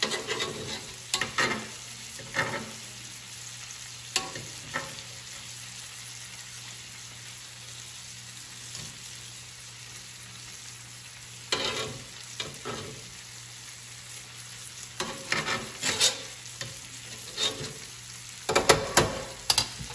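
Butter with garlic and herbs sizzling steadily in a cast-iron skillet on low heat as filet mignon steaks are basted. Metal tongs clink and scrape against the pan in several short bursts, busiest near the end.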